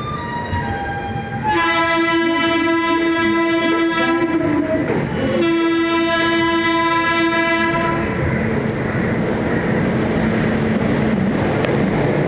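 Indian Railways WAG-9HC electric locomotive's horn sounding two long blasts of about three and two and a half seconds with a short break between, followed by the steady rumble of the train running.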